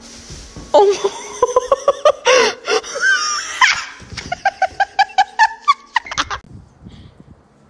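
A person laughing hard: long high-pitched peals, then a run of quick rhythmic bursts of laughter that die away a little after six seconds in.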